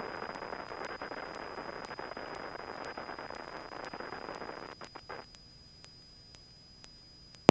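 Aircraft radio static: a steady hiss for about five seconds, breaking into a few short crackles before it cuts off.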